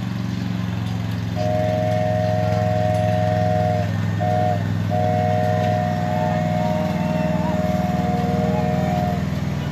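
Lawn mower engine running steadily as it pulls a ride-on train. Over it, a horn-like chord of three steady tones sounds long, then briefly, then long again.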